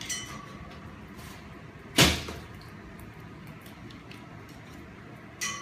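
Metal pet gate clanking twice with a brief ringing, right at the start and near the end, and one louder sharp bang about two seconds in, as a German Shepherd puppy knocks against the pen and gate.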